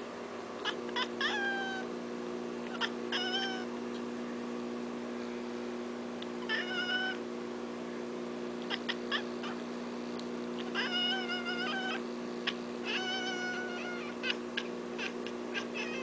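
Manx cat chirping and chattering at birds: about five short chirping calls, several dropping in pitch at the end, with quick clicks between them. A steady low hum runs underneath.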